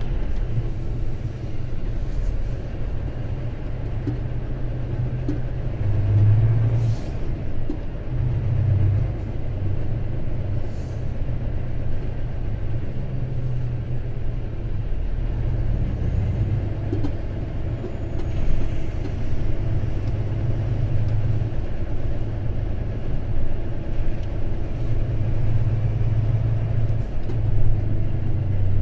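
Heavy truck's diesel engine running, a steady low rumble that swells and eases a little as the truck moves at low speed.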